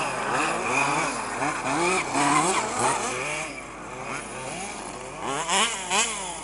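Several 1/5-scale petrol two-stroke RC off-road buggies racing, their small engines revving up and falling back over and over as they accelerate and brake around the dirt track.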